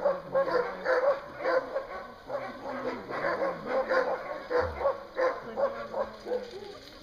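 A team of sled dogs barking and yipping, a few barks a second, overlapping and growing quieter toward the end.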